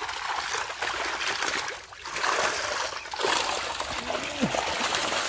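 Muddy water splashing and sloshing as a seine net is hauled through a drained fish pond. The splashing is continuous, with a brief lull about two seconds in.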